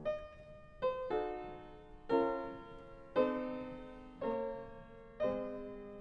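Slow background piano music: a single note or chord struck about once a second, each fading away before the next.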